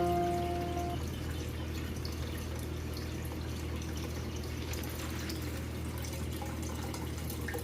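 Water dripping and trickling, small scattered drips over a steady low hum. A few held musical notes die away in the first second.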